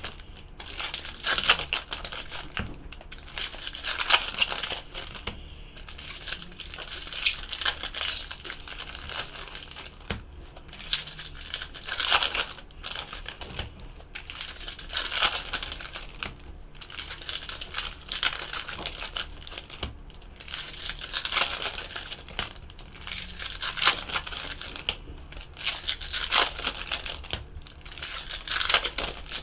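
Foil wrappers of 2015 Topps Chrome Football trading-card packs crinkling and being torn, and the cards being handled and shuffled. It comes as a run of short rustles every second or two.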